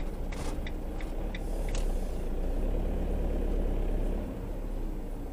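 A motorhome's engine and tyres running at low speed as it rolls across a car park, heard from inside the cab, with a run of light ticks in the first two seconds. The running grows louder from about two seconds in and eases off about four seconds in.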